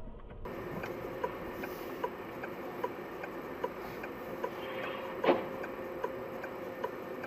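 A car's turn-signal indicator clicking steadily, about five clicks every four seconds, heard inside the cabin over a low hiss. One louder knock comes about five seconds in.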